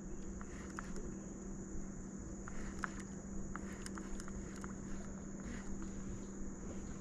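Outdoor creek-side ambience: a steady high-pitched insect drone, with a low steady hum under it and faint scattered clicks and rustles.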